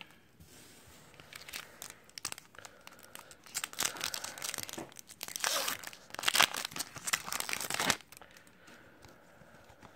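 Foil wrapper of an Upper Deck hockey card pack being crinkled and torn open by hand. The crinkling starts about a second and a half in, grows louder, and stops abruptly about two seconds before the end.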